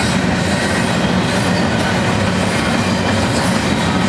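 Double-stack container train's loaded well cars rolling past, a steady, loud rolling noise of steel wheels on the rails.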